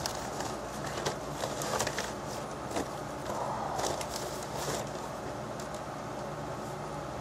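A mailing bag being torn open and handled, giving a run of crinkling, tearing and rustling sounds over the first few seconds, then quieter handling of papers.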